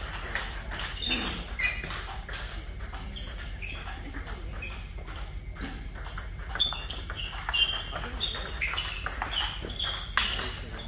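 Table tennis balls clicking sharply off paddles and the table, each hit with a short high ping. The hits come quicker in the second half as a rally gets going.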